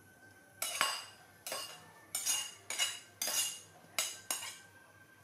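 Metal soup ladle knocking and scraping against a metal cooking pot, a run of about eight ringing clinks over some four seconds.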